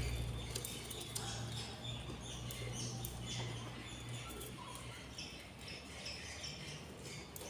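Budgerigar chicks in the nest giving many short, high, squeaky chirps, typical of hungry chicks begging for food. A low steady hum sits underneath and fades out about halfway through.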